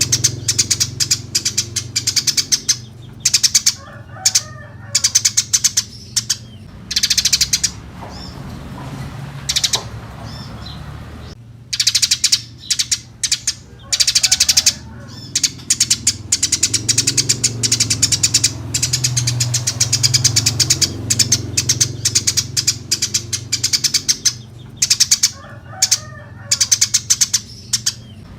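Eurasian tree sparrows chirping: rapid bursts of sharp, high chirps separated by short pauses, over a low steady hum.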